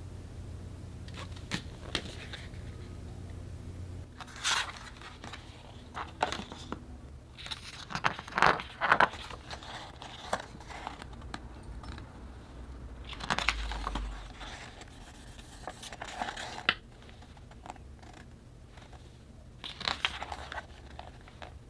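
Hands unpacking paper, card and plastic packaging: a series of short rustles and clicks, loudest about eight to nine seconds in.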